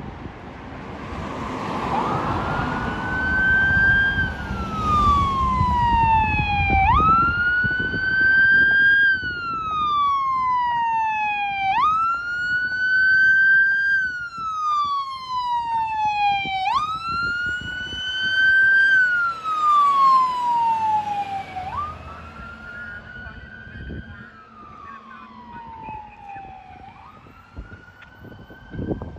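Fire rescue truck's siren on a wail, sweeping up quickly and falling back over about three seconds, repeating about every five seconds. It is loudest as the truck passes and grows fainter as it drives away.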